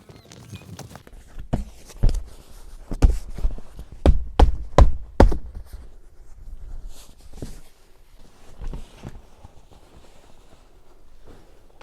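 A series of sharp knocks and thuds, about a dozen, bunched between about one and five seconds in, followed by fainter scattered handling sounds.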